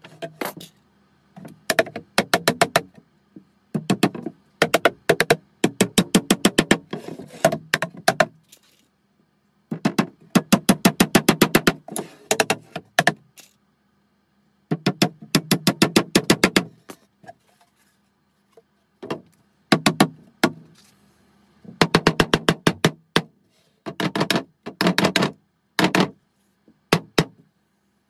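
Rapid runs of hammer taps on a wooden beehive super box, several knocks a second, in bursts of a few seconds with short silences between.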